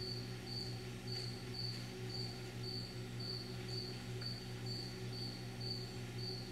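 An insect chirping steadily, short high pulses about two a second, over a low steady hum.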